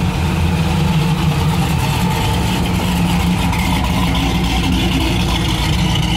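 Engine of a first-generation Chevrolet Camaro running with a deep, steady rumble as the car drives slowly past.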